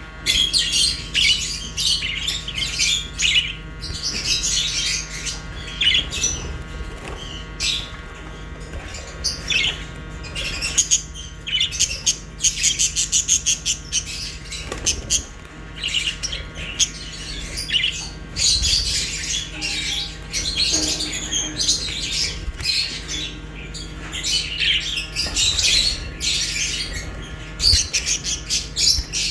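Budgerigars and Fischer's lovebirds chirping, chattering and squawking without pause, with a rapid trill about halfway through, over a steady low hum.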